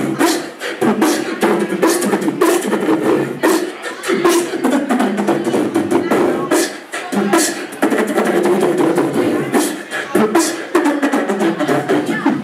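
Man beatboxing live into a handheld microphone: a fast, dense run of drum-like clicks and hits with a vocal tone carried under them.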